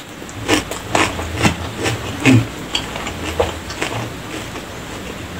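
Close-miked chewing of a bite of raw cucumber: a run of wet, crisp crunches, strongest in the first two and a half seconds and softer after.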